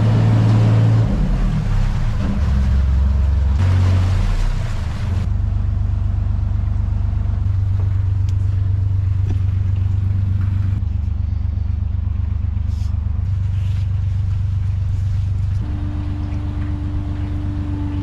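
Narrowboat engine running, its revs shifting over the first few seconds as the boat comes into the lock, then settling to a steady idle. A hiss runs over the first five seconds, and a steady higher hum joins near the end.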